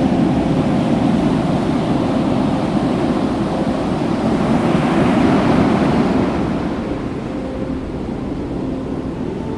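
Surf on a beach: a wave swells and washes in around the middle, then eases off.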